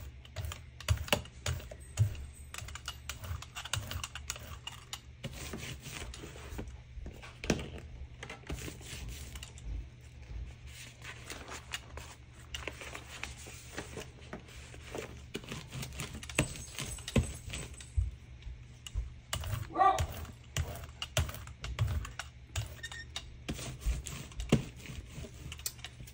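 Irregular light clicks and taps of a rubber brayer and plastic stencil on a gel printing plate, with craft tools handled on the work table. A low steady hum runs underneath.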